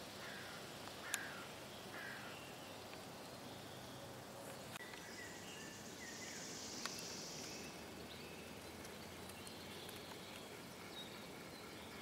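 Faint small-bird calls in a pine forest, short high chirps and brief notes scattered over a steady background hiss. Two sharp clicks stand out, about a second in and again near the middle.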